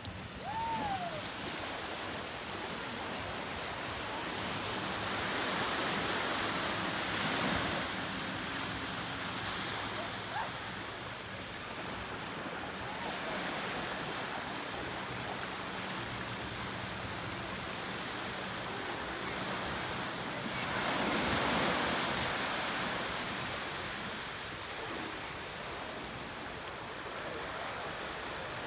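Ocean surf: a steady wash of waves, swelling twice as larger waves break, about six and twenty-one seconds in. A faint steady low hum runs underneath.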